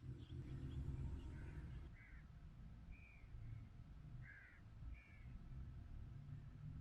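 Wind rumbling low and gusting unevenly. Over it, a bird gives about five short calls, spread across the middle of the stretch.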